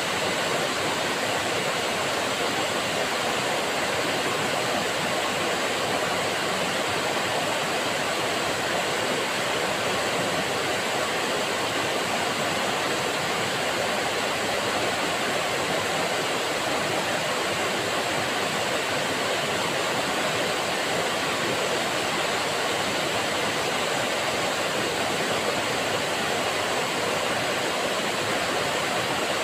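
Waterfall pouring into a pool: a steady, loud rushing of falling water.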